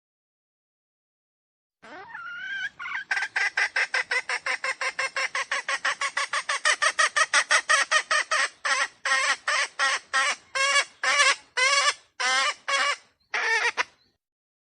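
Red junglefowl (wild chicken) giving a long run of short, rapid repeated calls. It begins about two seconds in with a rising note, goes at about six calls a second, slows to about three a second in the second half, and stops abruptly near the end.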